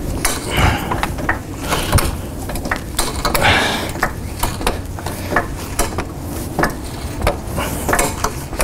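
Hydraulic floor jack being pumped by its long handle, a run of clacks and metallic clicks with each stroke as it lifts the front of a car under load.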